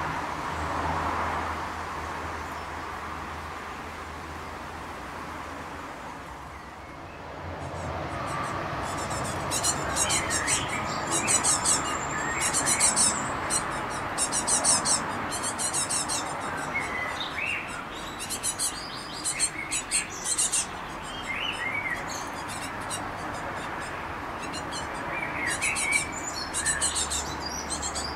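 Great tit fledglings' begging calls: rapid trains of thin, high notes in repeated bursts from about eight seconds in, mixed with a few lower chirps. The young are calling to an adult for food. Before the calls start there is only a low background hum.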